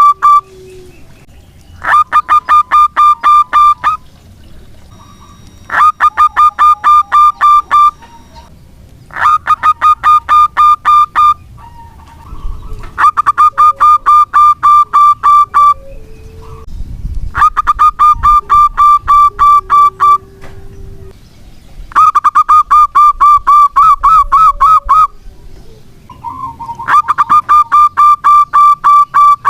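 Zebra dove (perkutut) cooing: phrases of rapid, clipped pulsing notes, each two to three seconds long, repeated about every four seconds with short pauses between.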